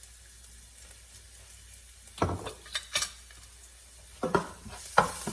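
Spoon knocking and scraping against a pan as onions and ginger garlic paste are stirred in hot oil, with a light sizzle. The knocks start about two seconds in, and the sizzle grows louder near the end.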